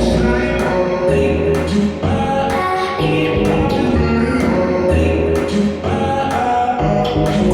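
Music with singing over a bass line and a steady beat, played through a PA sound system during a sound check.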